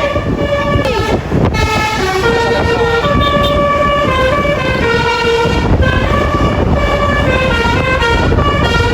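Bus's basuri (telolet) multi-tone air horn playing a melody, its tones stepping from note to note, over a steady low rumble.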